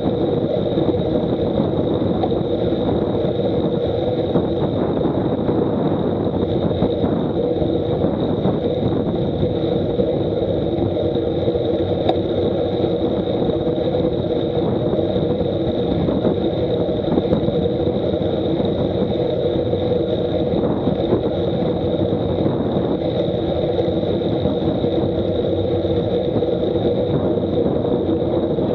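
Steady wind and road noise from a camera mounted on a road bike riding at about 35 km/h.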